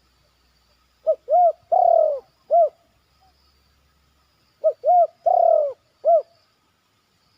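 Spotted dove cooing: two phrases of four notes each, the third note of each long and drawn out.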